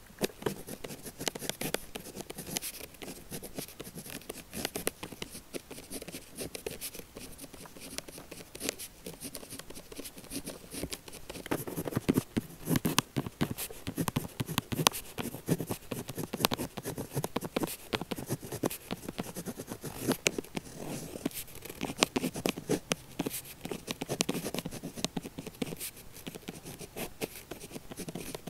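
Pen nib scratching across paper in a run of quick handwriting strokes, growing louder for stretches midway and again later.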